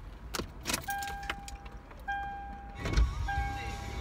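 Keys jangling, then a car's dashboard warning chime sounding over and over, each steady tone lasting about a second with short gaps. About three seconds in comes a loud thud, followed by a low steady rumble.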